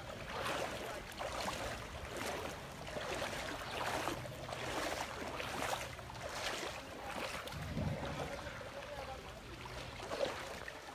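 Floodwater sloshing and splashing in irregular strokes as someone wades through a flooded street.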